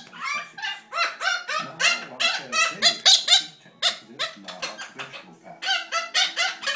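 Pet parrot calling in a rapid run of short squawks and chatter, about three calls a second, with a brief lull past the middle.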